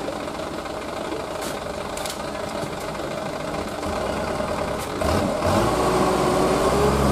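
Diesel engine of a bogged-down dump truck running at idle, then revving up and louder about five seconds in.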